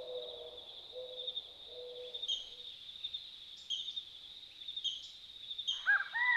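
Nature ambience of birds calling: a steady high trilling, low repeated notes in the first few seconds, sharp chirps every second or so, and a run of louder arched calls near the end.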